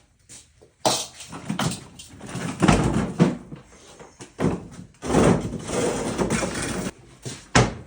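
Irregular knocks, scraping and clatter of workshop items being shifted and handled.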